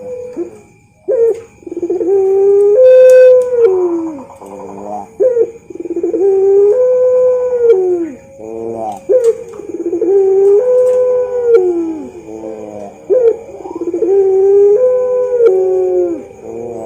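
Puter pelung, a long-cooing strain of Barbary dove, cooing: a run of drawn-out coos, each held for one to two seconds and then dropping in pitch at the end, repeated with short breaks.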